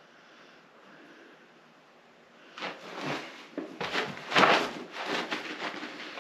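A person getting up off a plywood board on the shop floor: irregular scuffs, rustles and wooden knocks starting a little over two seconds in, loudest about halfway through, after a faint quiet start.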